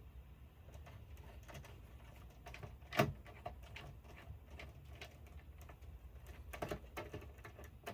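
Faint clicks and taps of a screwdriver and small hardware being handled while removing the screws holding an oscilloscope's LCD screen, with one sharper click about three seconds in and a few more near the end.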